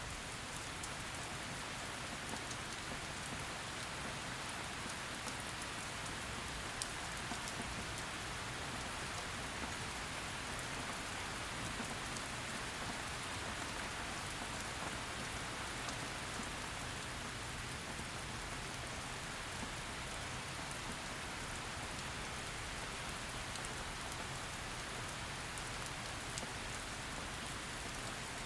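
Heavy rain falling steadily: a dense, even hiss of rainfall with scattered sharper drop ticks.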